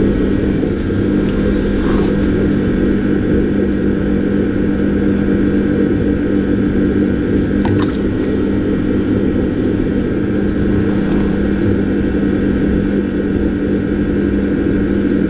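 Electric potter's wheel running with a steady hum while wet clay is pulled up into a small cup by hand. One light click about eight seconds in.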